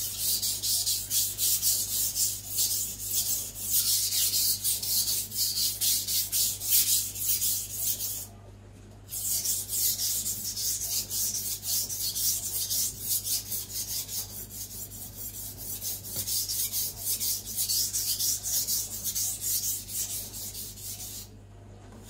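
Zwilling Five Star chef knife's steel blade stroked rapidly back and forth on a wet Naniwa Aotoshi 2000-grit whetstone, a quick rasping scrape on every stroke. The strokes stop briefly about eight seconds in and again just before the end.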